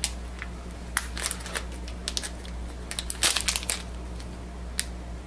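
Wrapper of a new inkjet ink cartridge being torn open and crinkled by hand: a run of sharp crackles and snaps, busiest a little past halfway through.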